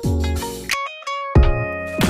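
Background music with a steady beat; the bass and low end drop out for about half a second in the middle, leaving only a few high notes, then come back.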